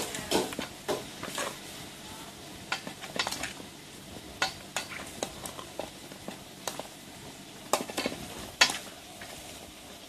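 A metal spoon clinking and scraping against a metal pot as whole tilapia are turned in a seasoning marinade: irregular light clicks and taps, the loudest a little before the end, over a steady hiss.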